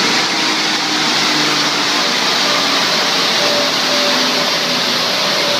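Steady rushing of a large dyno cooling fan, with the turbocharged Honda S2000's 2.0-litre four-cylinder engine running at low revs underneath it.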